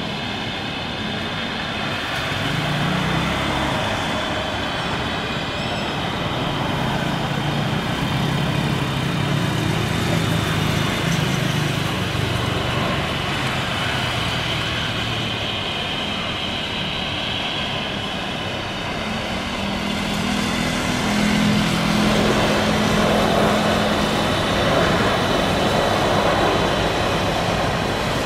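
Jet engines of a Boeing 787 Dreamliner airliner landing, a steady rushing drone. About two-thirds of the way through, the noise grows louder as the aircraft rolls out along the runway after touchdown.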